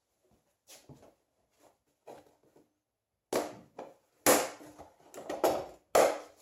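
Black plastic top cover of an air compressor being pried off, with a series of sharp plastic snaps and cracks as the clip tabs around its edge pop loose. The snaps are faint and sparse at first and louder and closer together in the second half, as the cover comes free.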